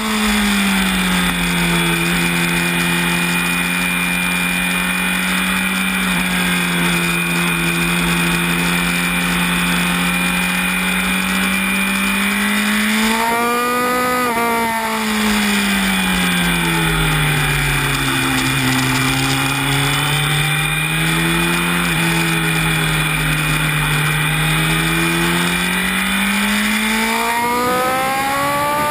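Honda CB1000R's inline-four engine heard from onboard at racing pace: the note settles and holds through corners, rises and breaks near the middle, sinks to its lowest a few seconds later, then climbs steeply near the end under hard acceleration. Steady wind rush over the microphone runs underneath.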